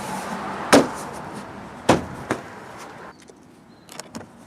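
Hand blows on a Toyota Prius plastic door panel, pushing its clip fasteners home into the door: two sharp knocks about a second apart, then a lighter one, and a few faint clicks near the end.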